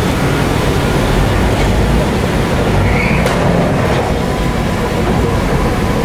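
Heavy diesel earthmoving machinery, a bulldozer working with a dump truck, running loud and steady, with a sharp clank about three seconds in.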